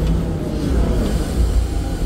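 SANY excavator's diesel engine running steadily as the boom and bucket dig, heard from inside the operator's cab.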